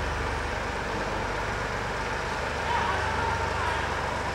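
Small vintage tractor engine running steadily as the tractor drives across the arena sand, towing a drag behind it.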